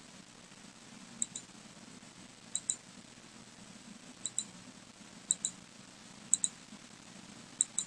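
Computer mouse button clicking six times, each a quick double tick, about once a second over a faint low hum.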